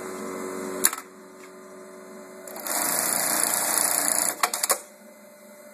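Juki LK1900 bartacking machine running one sewing cycle over a steady electrical hum. A sharp clack comes about a second in, then a loud burst of fast stitching lasting under two seconds, ending in a quick run of clicks.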